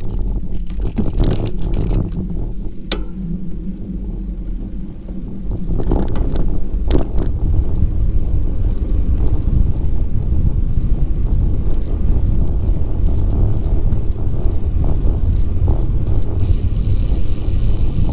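Wind buffeting the microphone over the low rumble of a bicycle rolling along a paved trail, growing louder about five or six seconds in as it picks up speed, with a few sharp clicks or knocks in the first seven seconds.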